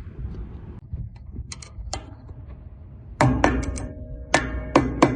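Background music with sharp, plucked or percussive notes comes in about three seconds in and repeats several times. Before it there is only faint outdoor noise with a few clicks.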